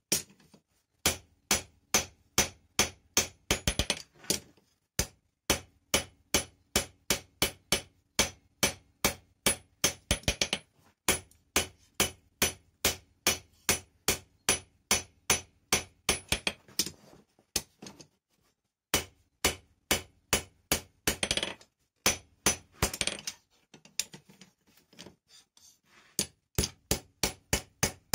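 Hand hammer striking a hot steel bar held in tongs on an anvil, in a steady rhythm of about two to three blows a second, with a couple of brief pauses.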